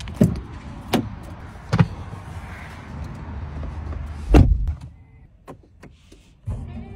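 Car door handle clicks and the driver's door of a Land Rover Defender 90 opening, then the door shut with a heavy thump about four and a half seconds in. Near the end its 5.0-litre supercharged V8 starts and settles into a steady low idle.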